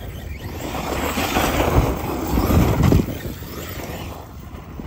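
Arrma Fireteam 6S RC car driving over gravel and grass, its motor and tyres swelling over the first three seconds and then falling away.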